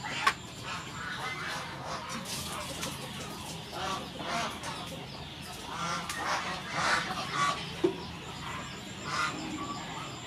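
Domestic fowl calling over and over, a string of short calls every half-second to a second.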